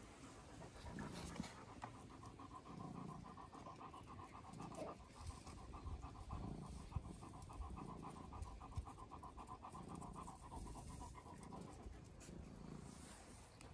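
A German Shepherd panting with its tongue out, faint and steady.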